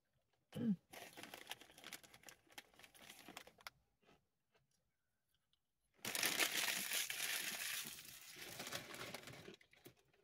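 Plastic chip bag crinkling as it is handled and folded, in two stretches; the second, starting about six seconds in, is louder and longer. A brief falling vocal hum comes just before the first stretch.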